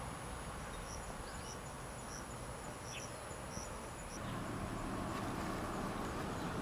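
Insects trilling steadily in a high thin tone, with short chirps repeating over it. About four seconds in, a louder rustling comes in as dried carrot seed heads are handled.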